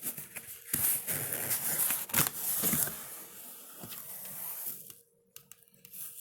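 Packing tape being cut and torn open on a cardboard box, with scraping, crinkling and small clicks of tape and cardboard, stopping about five seconds in.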